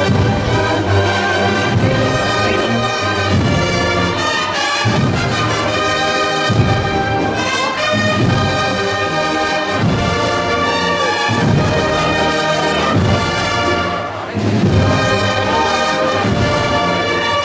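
Brass band with drums playing a Holy Week processional march.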